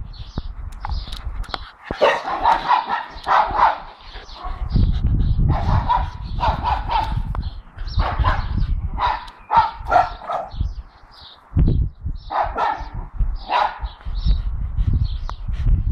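Staffordshire bull terriers barking in four bouts of quick, repeated barks with short pauses between them, over a low rumble.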